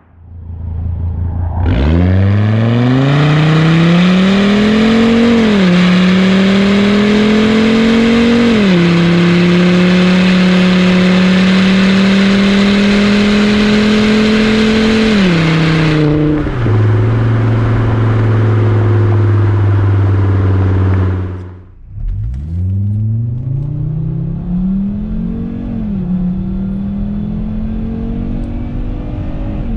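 Volvo XC70 2.5T five-cylinder turbo engine with the muffler deleted (resonator and stock cat kept), its exhaust rising in pitch under hard acceleration and dropping at each upshift, twice in the first pull. It is loud close to the tailpipe, then quieter in a second pull near the end that again rises and falls at a shift.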